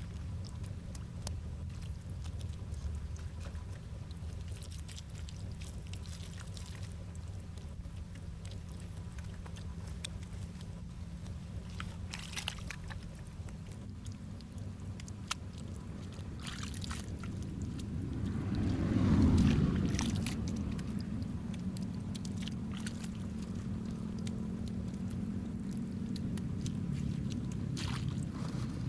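Wet mud squelching and sloshing as hands scoop and press it, with scattered short clicks. Under it a steady low engine drone runs throughout, swelling to its loudest about two-thirds of the way through and then easing off.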